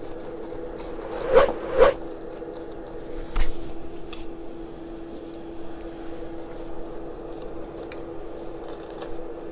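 Aluminium foil crinkling and scraping as it is pushed back into place over the charcoal in an air fryer basket with tongs and a knife. There are two sharp crinkles about a second and a half in and another near three and a half seconds, over a steady hum.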